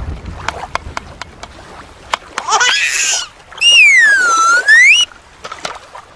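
Dolphin calls: a run of sharp clicks, a short rising squeak about two and a half seconds in, then a loud whistle that dips in pitch and rises again.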